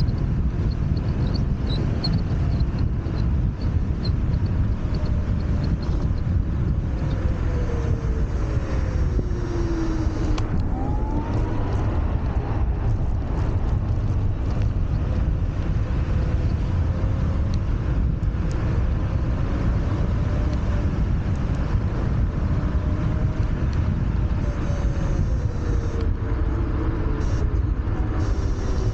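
Ride noise from a Wolf Warrior 11+ electric scooter at speed: a steady low rumble of wind on the microphone and tyres on the road, with the motors' faint whine rising and falling as the speed changes.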